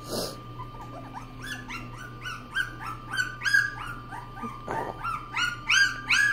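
Two-week-old standard poodle puppy crying for milk: a quick run of short, high squeals, about three a second, getting louder near the end. A short knock right at the start.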